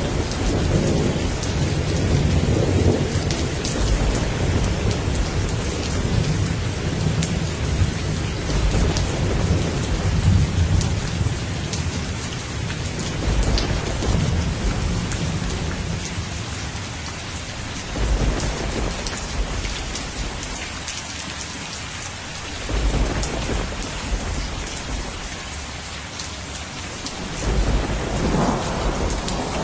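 Steady heavy rain hissing, with thunder rumbling low underneath in long rolling swells that fade and return several times.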